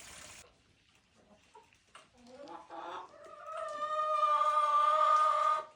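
A rooster crowing: one long, held call starting about three seconds in and lasting over two seconds, the loudest sound here. Shorter, fainter clucks come before it.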